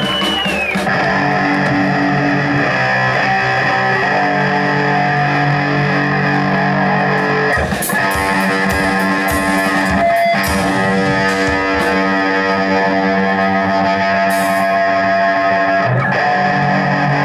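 Distorted electric guitar letting long chords ring out through effects, the chord changing every few seconds, with a few scattered drum hits and no steady beat.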